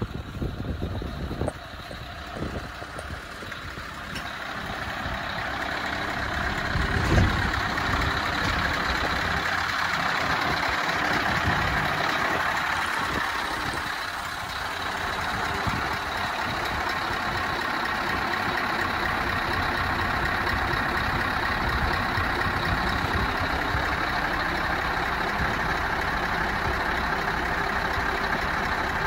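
Scania R 500's V8 diesel idling steadily, growing louder over the first several seconds as the cab comes nearer, with a single thump about seven seconds in.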